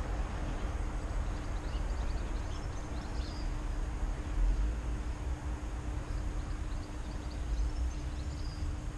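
Outdoor background rumble with a steady low hum, and a few faint high chirps about two to four seconds in and again near the end.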